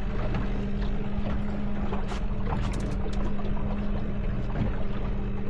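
A boat's motor hums steadily while water slaps and splashes against the hull, with scattered sharp knocks.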